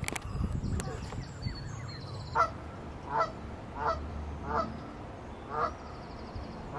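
Goose honking: a series of short honks, one about every second, starting a little over two seconds in.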